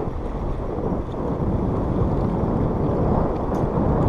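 Wind buffeting an action camera's microphone: a steady low rumbling rush.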